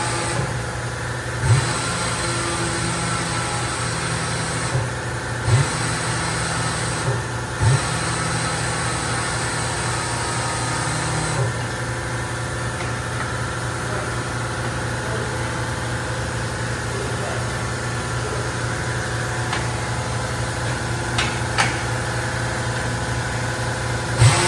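A vehicle engine idling steadily, with a few short thumps over it.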